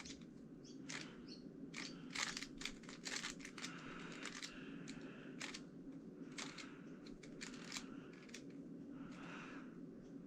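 GAN356 X magnetic speed cube being turned by hand as it is scrambled: faint, irregular plastic clicks and clacks of the layers, several quick turns in a row.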